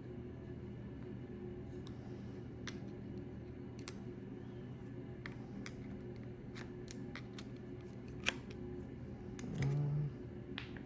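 Scattered light clicks and taps of small nozzle parts being handled while a new O-ring is fitted, over a steady low hum. Near the end comes a short pitched squeak, the loudest sound.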